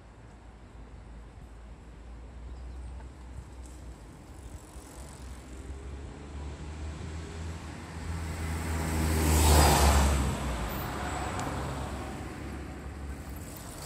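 A car driving past, its engine hum and tyre noise slowly growing louder to a peak about ten seconds in, then fading away.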